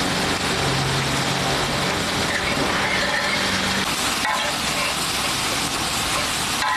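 Spiced masala paste sizzling in hot oil on a large street-food tawa while a flat spatula stirs and spreads it, a steady hiss.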